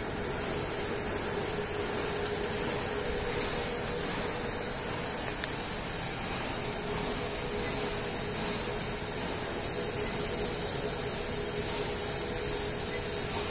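Yamada Dobby A-30H 30-ton high-speed stamping press running, a steady mechanical hiss with a held whine and no separate strokes to be picked out.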